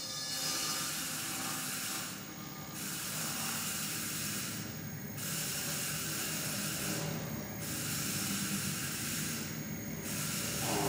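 Live-electronics noise texture: a steady hiss whose upper part drops away briefly about every two and a half seconds, over a low rumble. A brighter mid-pitched sound comes in near the end.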